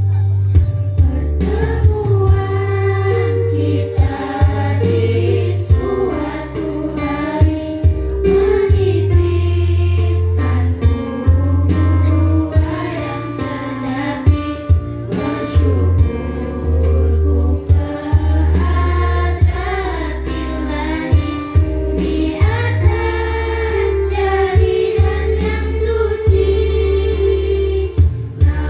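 A group of girls singing together over backing music with a deep sustained bass and a sharp percussive beat.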